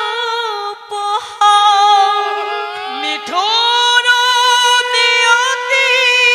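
A woman singing a Bengali devotional kirtan melody in long, high, held notes with vibrato, with a short break about a second in and a dip and rise in pitch about three seconds in.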